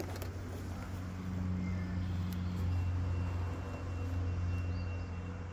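Low, steady engine drone that swells through the middle and eases off toward the end, like a motor passing at a distance.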